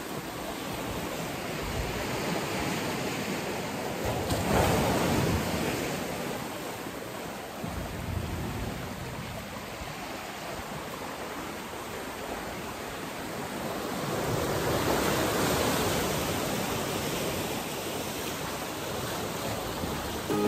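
Sea surf breaking and washing over rocks and sand, a steady rush that swells into louder surges about four seconds in and again past the middle.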